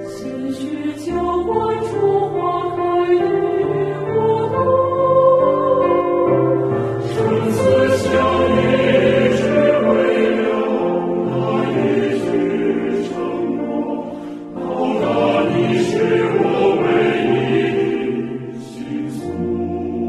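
Calm background music: a choir singing slow, held notes over low bass notes.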